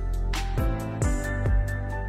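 Background music with a steady beat: held chords over kick drum and light percussion.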